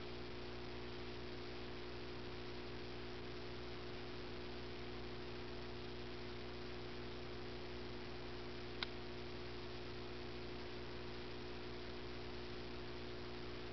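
Steady low hum with a layer of hiss, unchanging throughout, with one short sharp click about nine seconds in.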